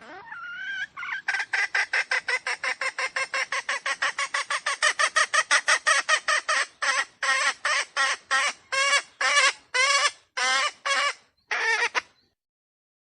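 Red junglefowl (wild chicken) calling. It opens with a rising note, then gives a rapid run of short clucking calls, about five a second, that slows to about two a second in the second half and breaks off near the end.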